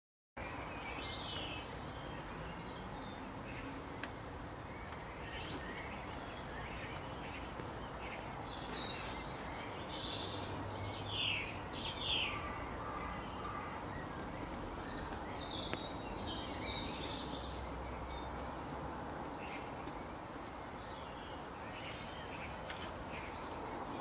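Birds chirping and calling over a steady outdoor background hiss, with short scattered calls throughout and a few louder chirps around the middle.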